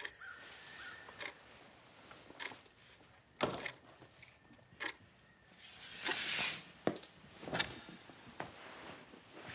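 A series of irregular knocks and clicks, about eight in all, with a brief rustling swish about six seconds in.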